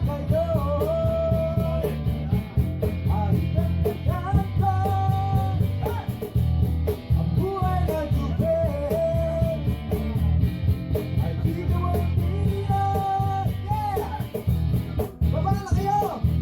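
Acoustic jam: a voice singing phrases with held notes over strummed acoustic guitar in a steady rhythm.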